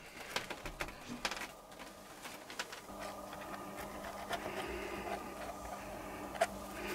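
Faint clicks and rustles of leather pieces being handled on a workbench, then soft background music fading in about three seconds in.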